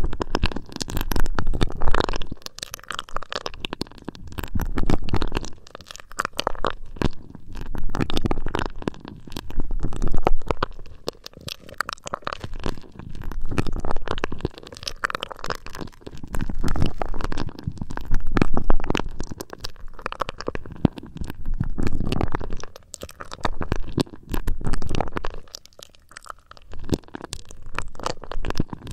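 Fingers rubbing and tapping on an ear-shaped binaural microphone, heard as muffled low rumbles with crackling. The sound comes in swells every two to three seconds.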